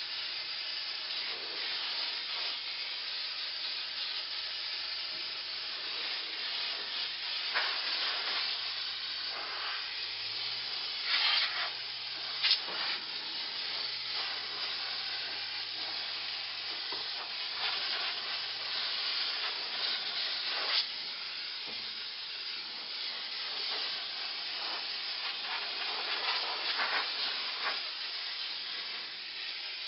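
Portable steam cleaner hissing steadily as its nozzle steams an indoor HVAC evaporator coil to kill mold and bacteria, with short louder spurts now and then.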